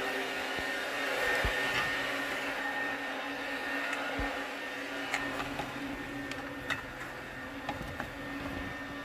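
Leaf blower running steadily with a droning whine, with a few light clicks of parts being handled in the second half.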